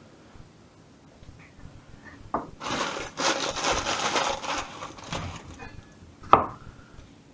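A plastic produce bag crinkles and rustles for about two seconds as a green pepper is handled out of it. Near the end, a cleaver chops once, sharply, onto the wooden chopping board.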